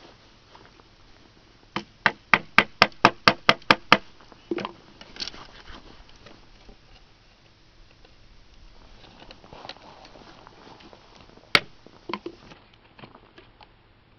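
A quick run of about ten sharp taps, about four a second, as a hammer strikes the spine of a G-10 and titanium composite knife, driving its point into a thin wooden stick to cut a small square hole. A few softer knocks follow, then one more sharp strike and some light ticks near the end.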